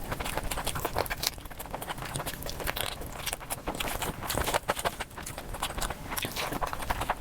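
Mukbang eating sounds sped up to four times speed: a dense, fast run of chewing and crunching clicks.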